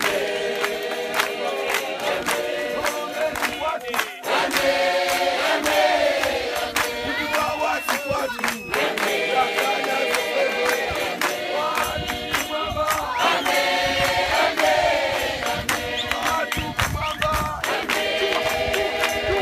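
A large crowd singing a hymn together, with hand clapping throughout.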